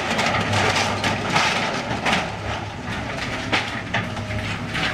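Tracked excavator's diesel engine running steadily while its grapple tears into a building's metal roof and framing, with a series of crunches and clanks of sheet metal and debris.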